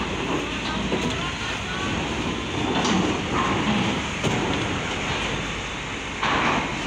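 Diesel cargo trucks, a Hino among them, driving off a ferry down its steel ramp: engines running and tyres rumbling over the steel deck, with a couple of sharp knocks. A short burst of hiss comes near the end.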